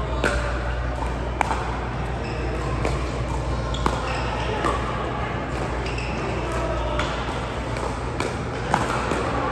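About six short, sharp clicks at irregular intervals over a steady hum and faint background voices in a large room.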